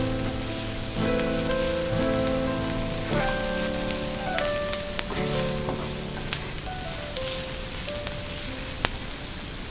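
Onions and garlic sizzling in hot oil in a pan, with a few sharp clicks of stirring, under background music of held notes that change every second or so.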